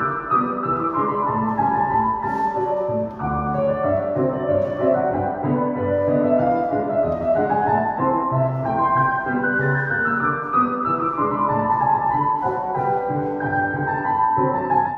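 Classical piano music playing throughout, a melody moving over chords.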